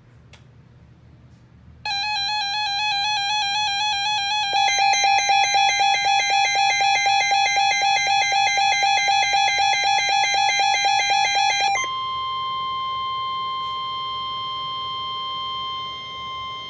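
A Midland WR-100 weather radio's alert alarm sounding for about ten seconds: a warbling beep that turns into rapid pulsing a few seconds in. It then gives way to the NOAA Weather Radio warning alarm tone, one steady tone near 1050 Hz held for about six seconds, which announces a new severe thunderstorm warning.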